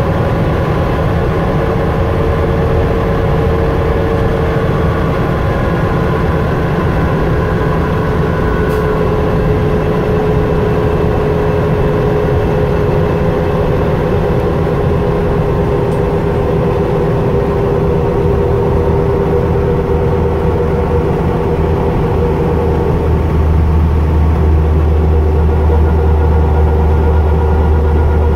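Inside a New Flyer C40LF transit bus at about 69 mph: the rear drive axle sings, a steady gear whine over heavy engine and road rumble, drifting slightly lower in pitch. About 23 seconds in the whine fades and the low rumble grows louder.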